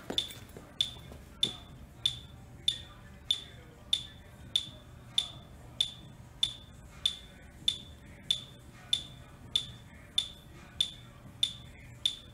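A metronome app on an iPhone beeps the step-test cadence, about one and a half short, high beeps a second, very evenly. That is 96 beats a minute, the men's cadence for the Queens College step test, left running after the stepping has stopped.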